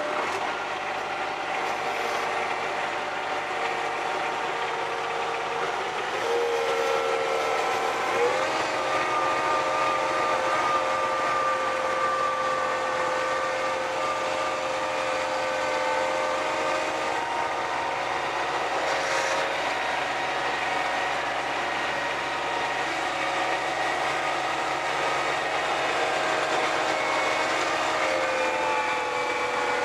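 John Deere 1026R compact tractor working its front-mounted 47-inch snowblower through snow, heard from inside the cab: a steady mechanical whine that shifts in pitch a few times as it works.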